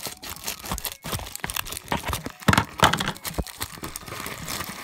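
Pink metallic foil mailer crinkling and tearing as it is opened, an irregular run of crackles that is loudest about two and a half seconds in.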